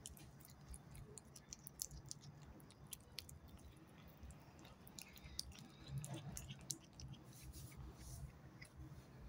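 Cat chewing and biting a chunk of raw steak, faint, with quick irregular clicks of teeth on meat throughout.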